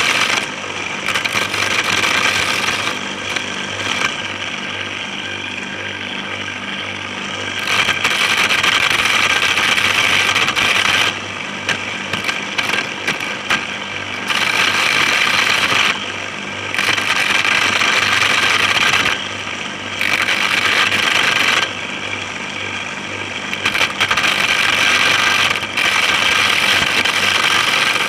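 Homemade corn sheller: an electric motor salvaged from a used Sanyo water pump runs with a steady hum, spinning a round head on its shaft. Over and over, for a few seconds at a time, a corn cob is pressed against the head and a loud, hissing, rattling grind of kernels being stripped off rises over the hum, then drops back.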